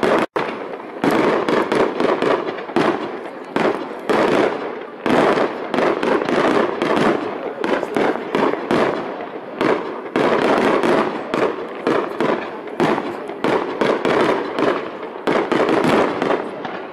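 Aerial fireworks bursting in a dense barrage: sharp bangs and crackling come several a second, almost without a break. The sound cuts out for an instant just after the start.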